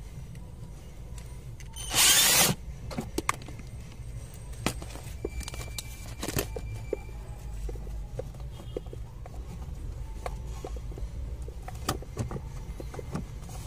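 Plastic clicks and knocks as a Toyota Hiace's aircon blower fan motor is unplugged and worked loose from its housing under the dashboard. One short, loud burst of noise comes about two seconds in, over a steady low hum.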